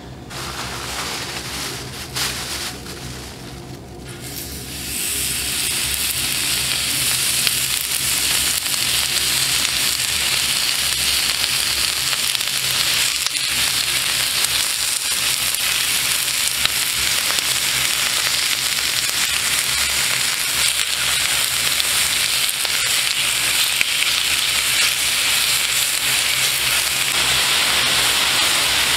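Sliced pork sizzling and frying on a large, shallow, hot black pan. A few light clicks come first, then the sizzling starts about five seconds in as the meat goes down and holds steady and strong.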